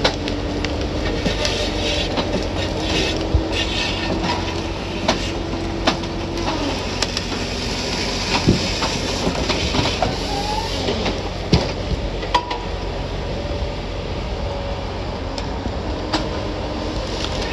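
Vehicle rolling over a rough logging road: a steady rumble with frequent rattles and knocks, and an engine hum that drops in pitch about six and a half seconds in.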